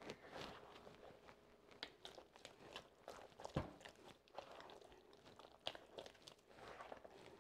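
Hands kneading a shaggy flour-and-water pizza dough in a plastic bowl: faint, irregular squishing and crackling as the dough is pressed and folded, with a single sharper knock about three and a half seconds in.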